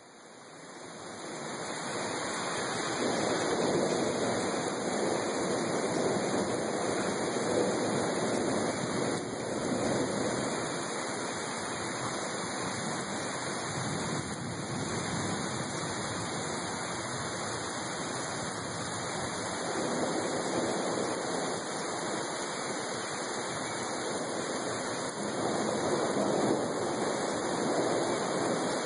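Heavy rain pouring down steadily, a dense even hiss that swells in over the first two seconds.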